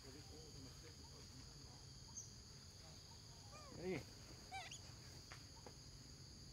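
Steady high drone of insects, with a macaque's brief call falling in pitch about four seconds in, followed by a quick run of short high squeaks.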